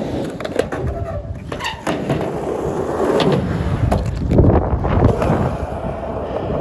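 Skateboard rolling on a mini ramp and concrete: a steady wheel rumble with several sharp clacks of the board.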